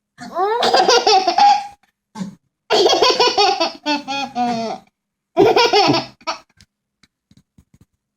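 A small child laughing in three bouts, the middle one the longest, then falling quiet.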